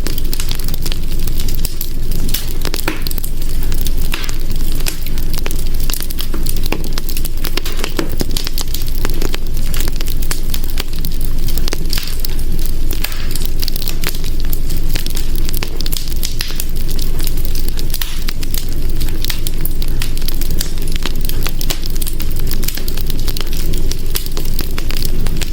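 Wood fire burning in a hearth, crackling steadily with many small irregular pops over a low rumble of flame.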